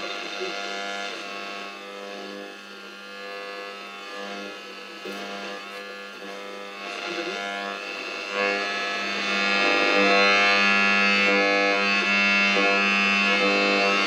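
Clock radio's AM/FM radio being tuned with poor reception, a weak station playing music through its small built-in speaker. The music gets louder about eight seconds in.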